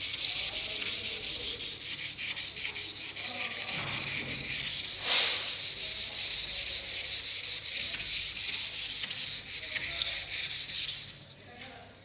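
Hand sanding of a sealer-coated wooden door panel with 240-grit sandpaper: quick, even back-and-forth scrubbing strokes that stop about a second before the end. The dried sealer coat is being smoothed before the colour and lacquer go on.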